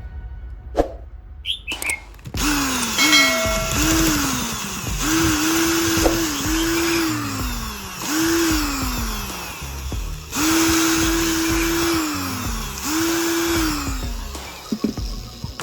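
Small electric power tool motor switched on and off about eight times in quick succession. Each time it spins up to a steady whine, holds briefly, then falls in pitch as it coasts down.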